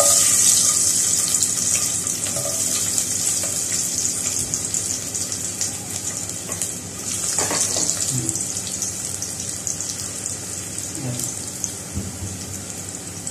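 Garlic cloves sizzling in hot cooking oil in a pot. The sizzle starts suddenly and loud as the cloves drop in, then eases off gradually.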